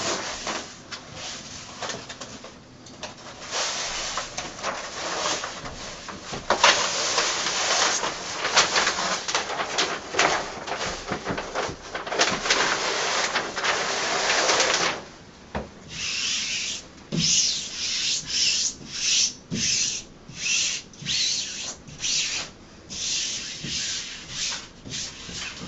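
Hands rubbing self-adhesive fabric wallcovering onto a wall, with its wax-paper backing being peeled and rustling. For about the first half it is a dense, continuous scratchy rustle; after that it breaks into separate swiping strokes, about one to two a second, as the fabric is smoothed down.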